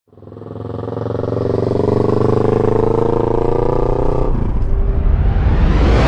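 A vehicle engine revving up in an intro sound effect, its pitch rising slowly. About four seconds in it gives way to a rising whoosh that climbs until it cuts off abruptly.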